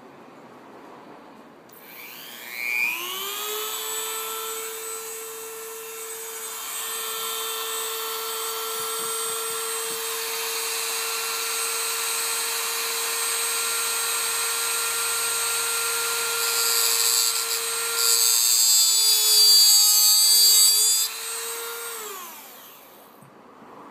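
Dremel rotary tool with a cut-off wheel cutting a piece of HO code 83 model railroad rail. The motor spins up to a steady high whine, the grinding gets louder and rougher for a few seconds near the end, then the motor winds down.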